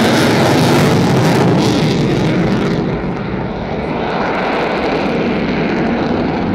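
Boeing F-15I Ra'am's twin turbofan jet engines passing close and loud in a display flypast. About three seconds in, the high hiss drops away and the noise eases as the jet moves off.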